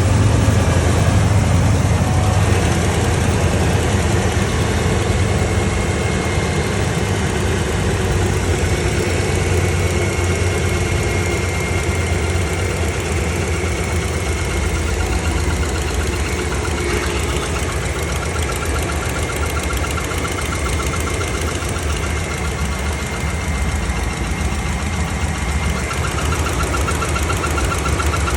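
2015 Ram 1500 pickup engine running steadily at idle with an odd noise that the owner calls weird; a faint wavering tone comes in past the middle.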